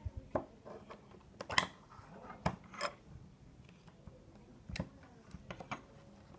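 Slime being squeezed and poked by hand, making irregular sharp clicks and small pops.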